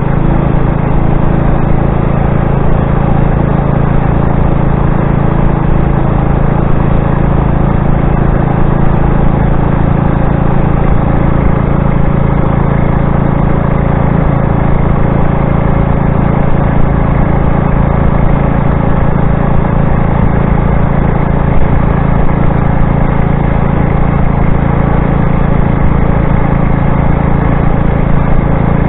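Motorized bicycle engine running at a steady cruising speed while under way, a loud, even drone that holds one pitch throughout.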